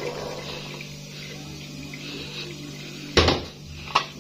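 Boiled green peas and their cooking water poured from a pan into an aluminium pot, a soft splashing and pattering onto the pumpkin leaves. About three seconds in there is a loud clank, and a lighter knock just under a second later.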